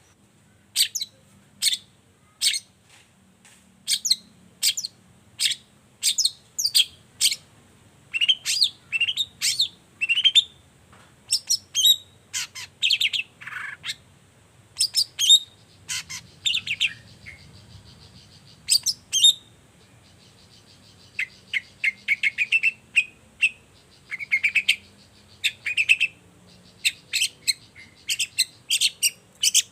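Long-tailed shrike (cendet) singing: short, sharp, high calls given singly and in quick chattering runs, with a brief lull a little past the middle.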